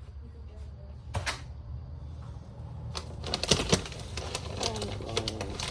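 Clicking and clattering of plastic containers being handled, likely the electrolyte-water bottle and the chickens' waterer being readied: one sharp click about a second in, then a busy run of rattling clicks from about three seconds in.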